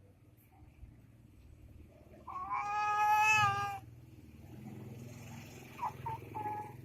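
A baby with a cough and cold lets out one wailing cry of about a second and a half, held at a steady pitch. A few short fussing sounds follow near the end.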